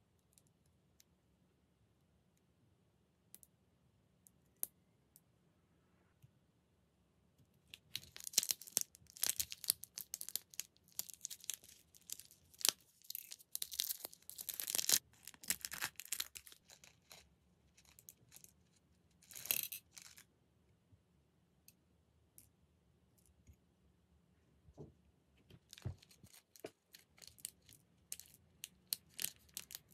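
Small plastic packet torn open and crinkled by hand in dense bursts for several seconds, with one more short burst a few seconds later. Near the end, tiny plastic toy ice cubes tip out of the packet and click into a miniature plastic cup.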